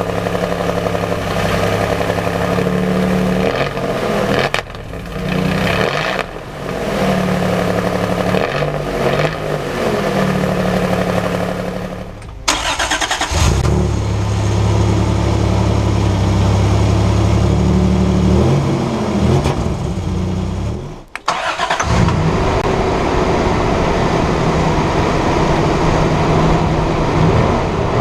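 Toyota Hilux pickup engine running, with a few quick revs that rise and fall in pitch, heard in several short clips with sudden breaks between them.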